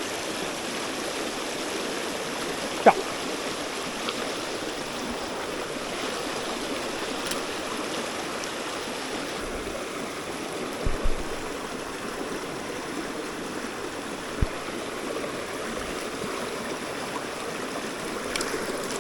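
Steady rush of a small mountain stream running high and swollen, with a few short knocks: a sharp one about three seconds in, two together around eleven seconds, and one more a few seconds later.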